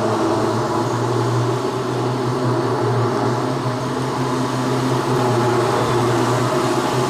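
A machine's motor running steadily with a loud, even low hum.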